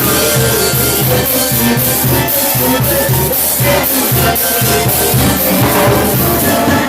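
Cumbia played by a Mexican banda, a brass-and-percussion band, with drums keeping a steady beat.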